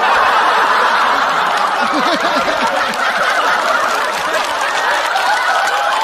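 A large studio audience laughing loudly: many voices at once, a dense, steady wave of laughter.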